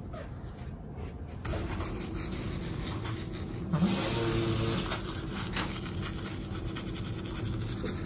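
Manual toothbrush scrubbing back and forth on teeth, a steady rasping starting about a second and a half in and loudest around the middle.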